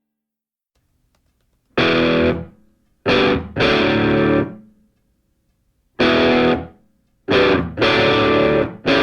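Rock music with distorted electric guitar chords. After a second and a half of near silence, the chords come in stop-start stabs, each held briefly and then cut off, about six of them.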